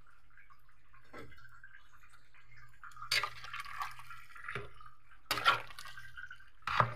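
Soup in a large metal cooking pot stirred with a ladle from about three seconds in: liquid sloshing and the ladle knocking and scraping against the pot several times.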